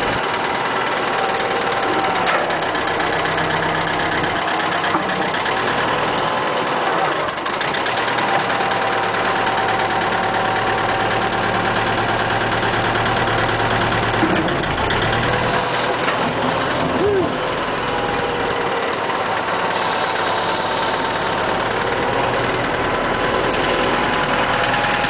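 1976 International 2412 backhoe's engine running steadily at idle, with small shifts in pitch now and then.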